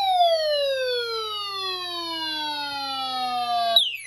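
A whistle-like tone gliding steadily down in pitch from high to low over several seconds. Near the end it cuts off and starts again from the top on a second downward glide.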